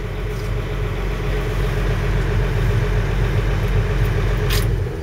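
John Deere excavator's diesel engine running steadily at a constant speed, with one short click about four and a half seconds in.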